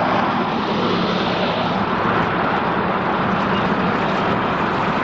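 Steady, loud vehicle roar with no distinct events.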